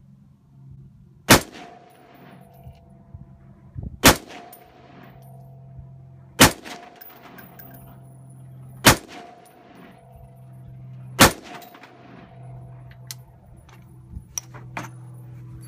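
Five rifle shots from an AR-10 fired from a bench, spaced about two and a half seconds apart, each followed by a brief metallic ring. A few light clicks near the end as the rifle is handled.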